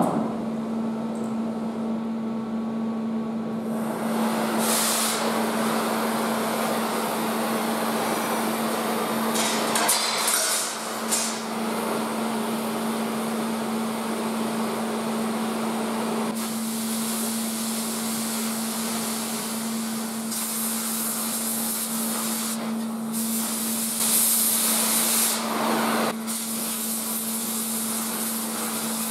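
Steel being arc-welded with a gas-shielded wire-feed (MIG) welder: a continuous crackling hiss from the arc that stops and restarts between runs, over a steady hum.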